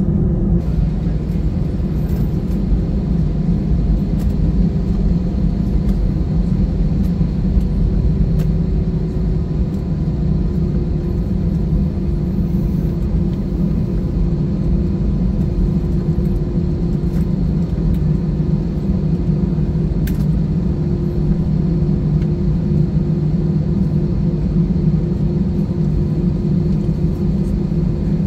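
Cabin noise of an Airbus A320-family jet taxiing: the engines run as a steady low rumble with a faint steady hum above it.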